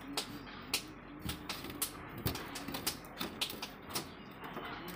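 Irregular sharp clicks and taps, about three a second, as shaved ice is pressed into paper cups around wooden sticks on a steel counter.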